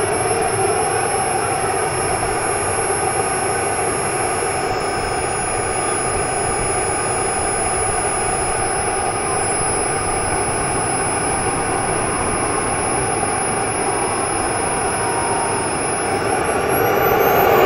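Small gas-turbine engine of a scale T-45 Goshawk RC model jet idling: a steady high whine over a rushing noise. Near the end the whine rises in pitch and the sound grows louder as the turbine spools up.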